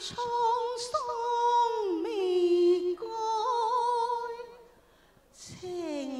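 A woman singing Cantonese opera through a handheld microphone, holding long vowel notes with wide vibrato. Her pitch steps down about two seconds in, and after a brief pause near the end she comes back in on a falling note.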